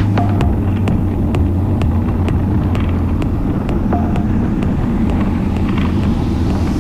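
Motorcycle engine running steadily on an off-road ride, with a sharp tick about twice a second over the engine's low hum.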